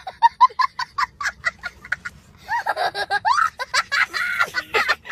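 A young child laughing hard: a quick run of short, even laughs at first, then longer laughing squeals that rise and fall in pitch.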